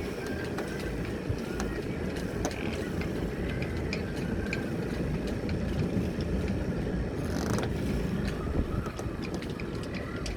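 Boat underway in strong wind: a steady low rumble of wind and engine, with frequent small mechanical clicks and rattles and a short rushing burst about seven seconds in.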